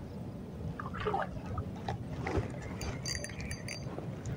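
River water trickling and lapping against floating fish cages, with a few small knocks and some thin high-pitched tones about three seconds in.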